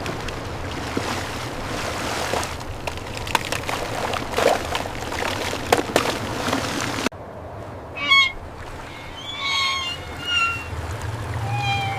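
A steady rushing noise with scattered sharp cracks, cut off abruptly about seven seconds in, followed by several short, high-pitched animal cries.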